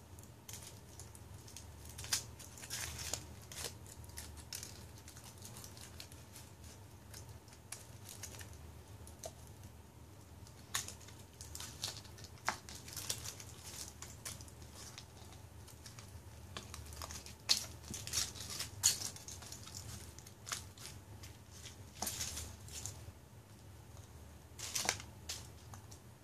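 Foil wrapper of a Kinder Surprise chocolate egg crinkling and tearing as it is peeled off and handled, in short spells of crackling with small clicks in between.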